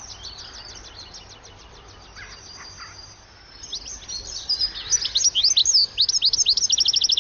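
A flock of European goldfinches twittering: rapid, liquid tinkling calls. They are faint at first, then grow louder and busier from a little over halfway in.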